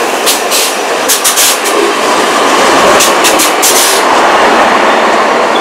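Bombardier Talent BR 643 diesel multiple unit passing close by at speed: a loud steady rolling rush, with quick clusters of sharp clicks from the wheels crossing rail joints about a second in and again around three seconds in.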